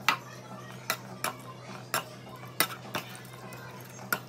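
Perforated stainless-steel potato masher striking the inside of a non-stick kadai while mashing cooked tomatoes and garlic in oil: about seven sharp metal clacks at uneven spacing. A steady low hum runs underneath.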